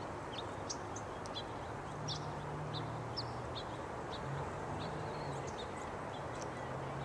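Small birds chirping: many short, high chirps scattered throughout, over steady outdoor background noise. A low steady hum comes and goes underneath.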